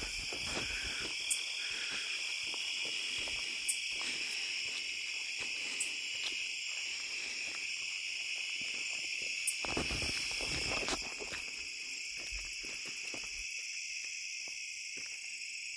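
Steady chorus of crickets and other night insects, several shrill trills at different pitches, with footsteps through grass and rustling handling noise underneath, louder for a moment about ten seconds in.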